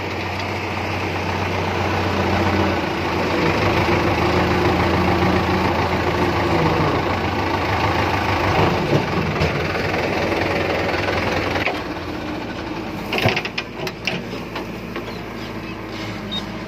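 Diesel tractor engine running as the tractor drives, heard from the seat; it gets louder over the first few seconds and drops to a lower, idling level about twelve seconds in, followed by a few sharp clicks and knocks.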